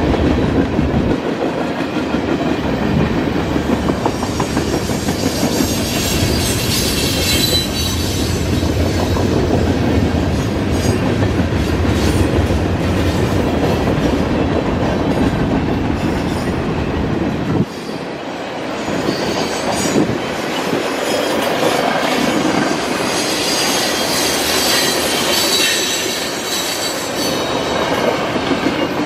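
Freight cars (tank cars, a boxcar and covered hoppers) rolling steadily through a grade crossing: wheels rumbling and clicking over the rails, with high-pitched squealing at times. The deep rumble drops off a little after halfway through.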